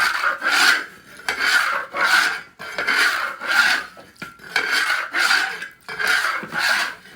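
Rhythmic scraping of about nine short rasping strokes, many in back-and-forth pairs, at roughly two a second.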